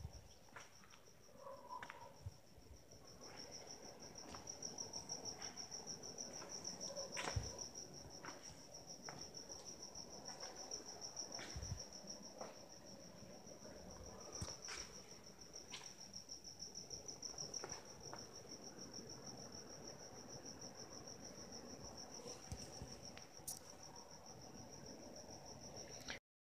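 Faint continuous high-pitched trill of a cricket, with a few faint clicks scattered through it.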